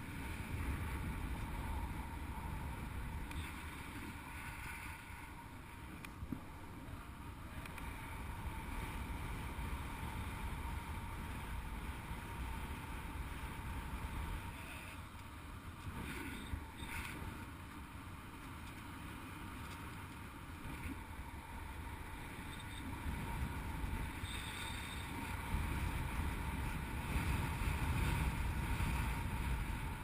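Airflow buffeting the microphone of an action camera on a paraglider in flight: a steady low wind rumble that swells and fades and is loudest near the end.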